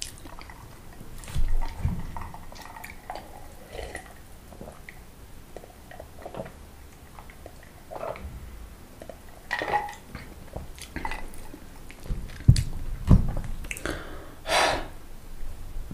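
Close-miked eating sounds: scattered wet mouth clicks and smacks from chewing food, with two low thumps near the end.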